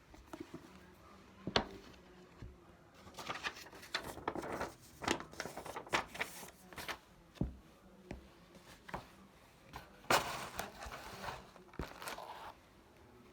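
Irregular crinkling and rustling of something being handled by hand, with a few sharp clicks, busiest in the middle and again near the end.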